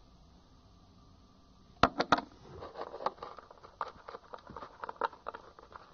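Small plastic salt shaker being handled and shaken over the bowl: three sharp clicks about two seconds in, then light, irregular ticking and crackling as table salt is added to the soft-soap slime.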